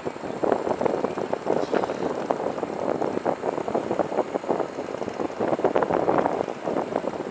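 Storm wind gusting and rain beating down, a rough, rushing noise that surges and eases with many crackling spatters.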